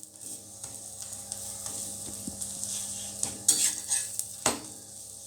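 Paratha frying in ghee on a hot tawa, a steady sizzle as it browns, with a few short scrapes of a utensil against the pan in the second half.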